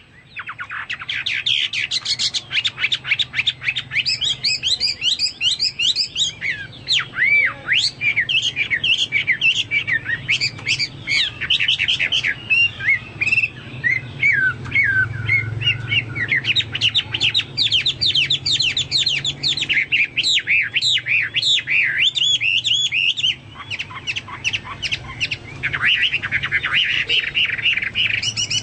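A Chinese hwamei (melodious laughingthrush) singing loud and non-stop, in fast runs of varied whistles, chirps and rapid trills that the title likens to a cucak Papua or cucak mas. The song eases briefly about two-thirds of the way through, then picks up again.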